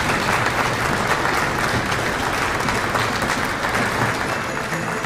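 Audience applauding, a dense steady clapping that begins to fade near the end as music comes in.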